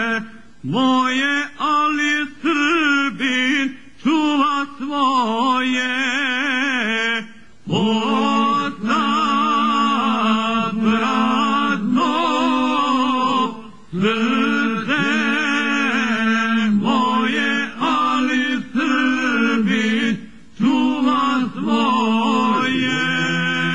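Men's voices singing a traditional Krajina folk song in harmony without instruments, the upper voice wavering in a shaking vibrato over a steadier lower voice. Near the end the voices hold one chord steady.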